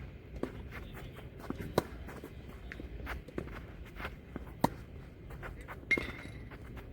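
Tennis rally: sharp racket-on-ball hits about every second and a half, with smaller ball bounces and footsteps on the court, and a short squeak about six seconds in.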